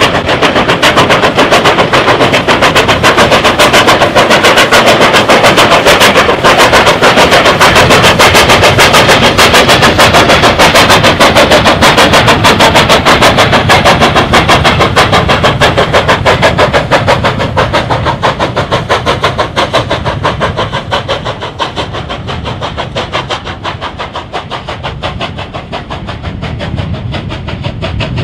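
JS-class 2-8-2 steam locomotive working hard up a steep grade with a heavy train of spoil wagons: a loud, rapid, even exhaust beat that fades from about two-thirds of the way through as it draws away.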